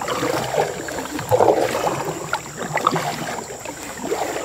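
Canoe paddle strokes pulling through the water, several swishes a second or so apart, with a few small clicks and drips between them.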